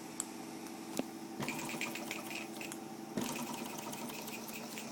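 Mamod SE2 toy steam engine heating up short of running: water and steam sizzling and crackling in the boiler and pipework, with a faint steady tone under it. Sharp clicks come about a second in and again about three seconds in, with the crackle densest between them.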